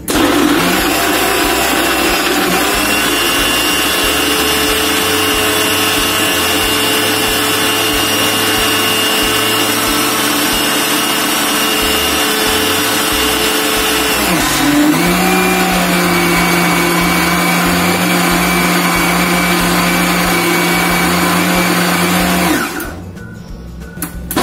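Electric mixer-grinder running steadily, churning butter with ice cubes and water until the butter separates from the liquid. About fourteen seconds in, the motor's note briefly dips and resumes at a different pitch. It stops a couple of seconds before the end.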